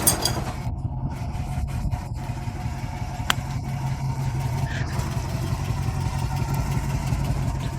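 1956 Ford F-250 truck engine running steadily at low speed, a low even drone, with a single sharp click a little past three seconds in.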